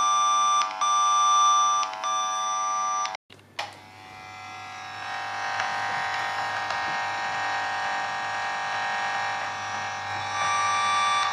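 Trend Networks amplifier probe's speaker sounding the analog trace tone that the cable tester sends on pin 5: a pulsing electronic tone of several stacked pitches. After a brief cut it comes back weaker, buzzier and with a hum, as the probe picks the tone up at the far end of the cable, and grows louder toward the end.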